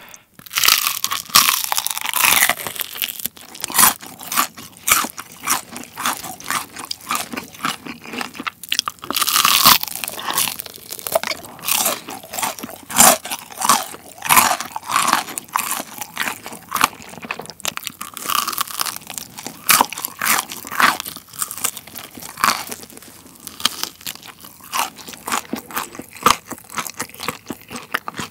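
Crunching and chewing of crispy Kyochon Honey Combo fried chicken, bite after bite of the crisp coating, with the crunches growing softer near the end.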